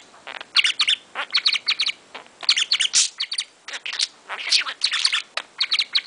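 Budgerigar chattering in quick runs of high chirps and warbles, with short pauses between runs.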